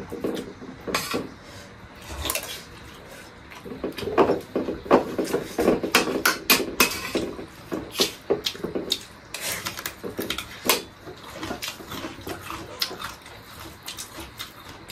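A metal spoon clinking and scraping against a metal plate of rice and curry while eating, in repeated, irregular clinks.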